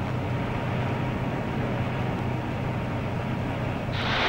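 Steady low machinery hum over a hiss. About four seconds in, a sudden, louder rush of air cuts in.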